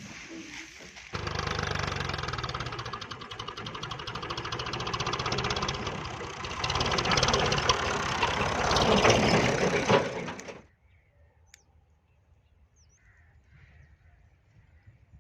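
Tractor engine running close by with a fast, even knock, getting louder about six seconds in and cutting off suddenly a few seconds before the end, after which only faint bird chirps remain.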